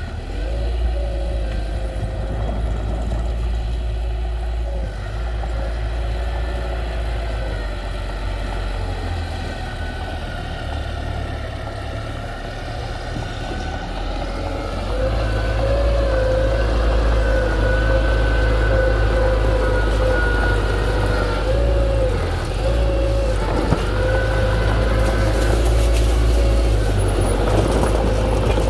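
Heavy diesel machinery running with a steady low rumble and a wavering whine, growing louder about halfway through as it works harder.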